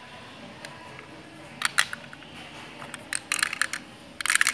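Plastic LEGO pieces clicking and rattling as a LEGO gumball machine is handled: a pair of sharp clicks about a second and a half in, then quick runs of clicks in the middle and near the end.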